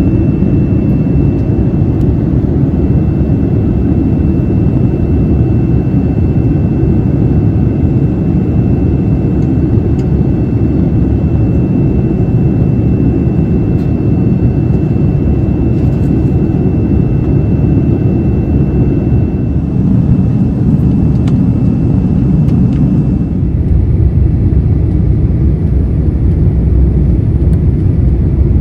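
Steady, loud rumble and rush of engine and airflow noise inside the cabin of a Boeing 787-9. A faint high tone stops and the sound shifts slightly about 23 seconds in.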